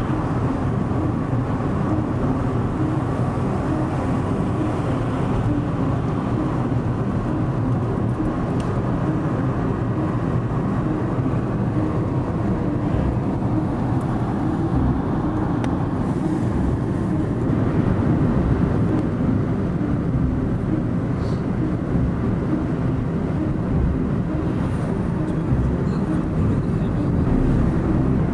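Car interior noise while driving: a steady rumble of engine and tyres on the road, heard from inside the cabin.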